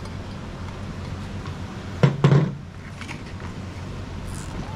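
Kitchen clatter of a mixing bowl and utensils as ingredients are added, with one louder clunk about two seconds in and a few lighter taps, over a steady low hum.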